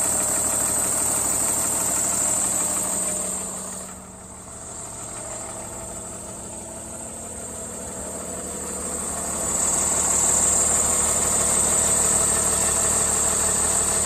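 A school bus's Cummins engine idling steadily. It fades for several seconds in the middle, then comes back up to full loudness.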